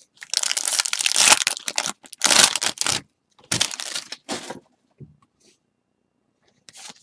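A trading-card pack wrapper being torn open and crinkled, in three loud rustling bursts over the first four and a half seconds, then only faint handling sounds.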